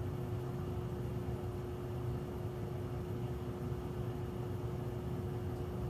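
Steady machine hum: one constant tone over a low, even rumble, with no change.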